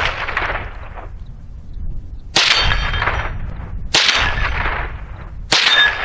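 Three shots from a Rock Island TM-22 .22 LR semi-automatic rifle, about a second and a half apart, each trailing off with a short echo. A brief ringing tone follows the first and last shots.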